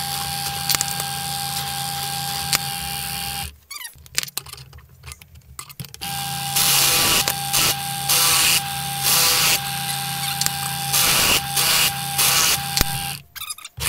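Bench drill press running with a steady hum, switched off about three and a half seconds in and started again about six seconds in. During the second run the bit cuts into a steel tube in about six short grinding bursts, and the press stops shortly before the end.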